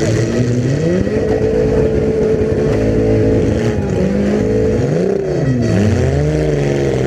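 Several demolition derby car engines running together, revving so that their pitch climbs, holds and dips.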